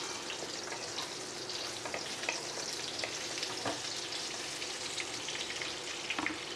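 Ridge gourd and pointed gourd pieces sizzling in hot mustard oil in a non-stick wok while a wooden spatula stirs and scrapes them, with a few light knocks of the spatula against the pan.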